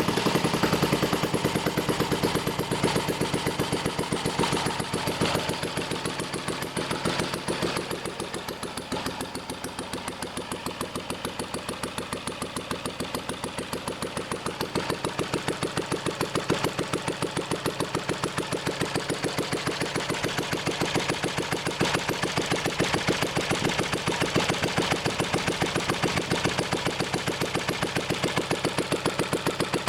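UZMD L3/2 small stationary single-cylinder engine running after an overhaul, with an even, rapid firing beat. It runs a little quieter from about six seconds in, then settles into a steady run for the rest.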